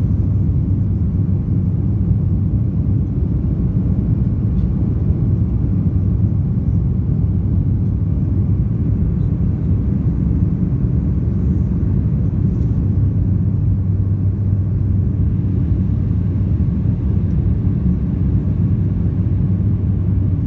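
Cabin noise of a Sukhoi Superjet 100 climbing after takeoff: its PowerJet SaM146 turbofans and the airflow give a steady low rumble inside the cabin, with a faint steady hum under it.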